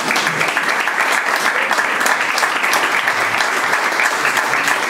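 Audience applauding: dense, steady clapping at a constant level.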